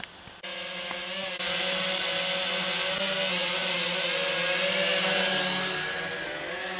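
Small quadcopter drone hovering close by, its motors and propellers giving a steady buzzing whine whose pitch wavers slightly as the motors adjust. It starts abruptly about half a second in and gets louder about a second later.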